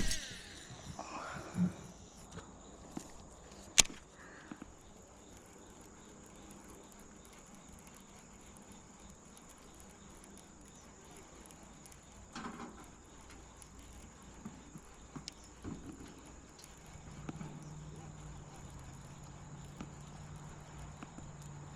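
Quiet outdoor ambience with a faint, steady high-pitched insect drone, typical of crickets. There are a few sharp clicks in the first few seconds and a low hum near the end.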